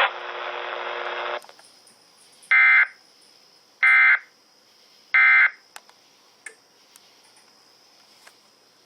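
Emergency Alert System end-of-message code on weather radio: three short, identical bursts of digital data tones about a second apart, signalling the end of the warning. Before them, radio hiss cuts off about a second and a half in.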